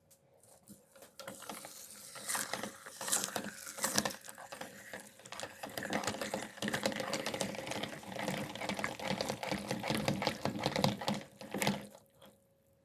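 Meat grinder pulping watermelon: a dense wet crackling with liquid sounds and many small clicks. It starts about a second in and cuts off suddenly near the end.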